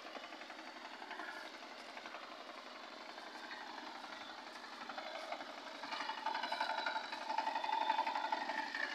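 Engine of a walk-behind power tiller running with a rapid knocking beat as it ploughs a flooded paddy field, faint at first and growing louder about two-thirds of the way through.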